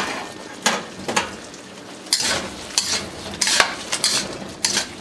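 A cooking utensil scraping and clanking against a wok about every half second, stirring chicken and vegetables in a bubbling sauce. A steady sizzling hiss runs under the strokes.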